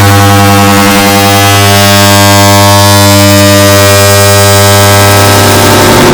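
An air conditioner's turn-on sound layered over itself into one loud, distorted, steady hum with a heavy buzz. It cuts off suddenly at the very end.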